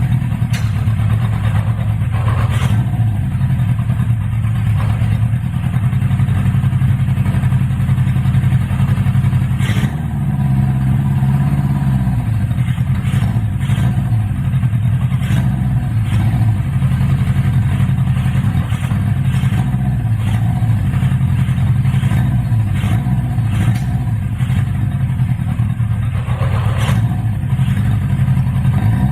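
Honda CB550F air-cooled inline-four engine running at a steady idle, its pitch rising slightly about ten seconds in before settling back, with a few sharp clicks along the way.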